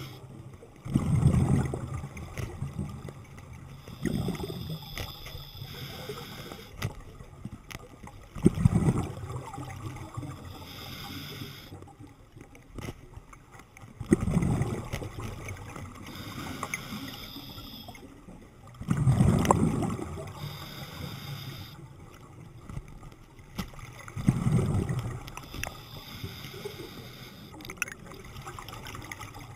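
A scuba diver breathing through a regulator underwater: a burble of exhaled bubbles about every five seconds, with a hiss of inhaling between them.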